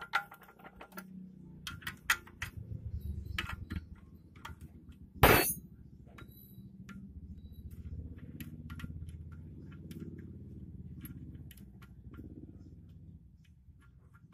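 Metal hand tools clicking and clinking against the diesel's injection pump as its tight fastening bolts are worked loose, with one loud sharp metallic knock about five seconds in and a low rumble underneath.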